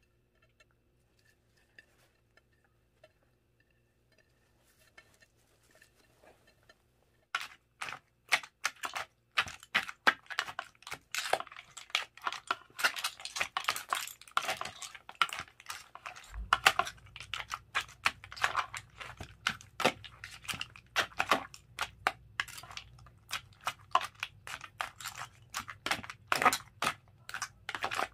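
Kitchen utensils and dishes clicking and clattering rapidly and irregularly, starting about seven seconds in after near silence. A low steady hum comes in about halfway through.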